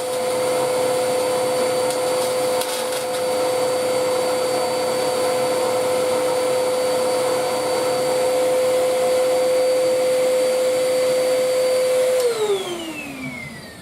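An electric motor runs at a steady speed with a high whine. About twelve seconds in it is switched off, and its pitch falls as it spins down.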